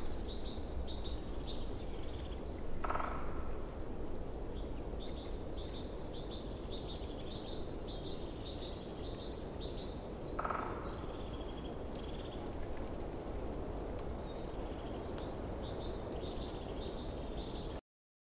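Outdoor ambience in grassland: repeated high, short chirps come in trains over a steady background hiss and low rumble, with two brief louder sounds about three and ten seconds in. The sound cuts off abruptly just before the end.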